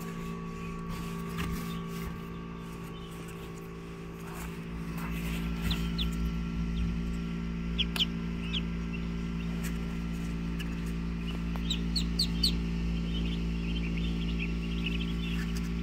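Newly hatched Muscovy ducklings peeping: short, high rising chirps, a few single ones, then several close together about twelve seconds in and a busier patch near the end. A steady low hum runs underneath.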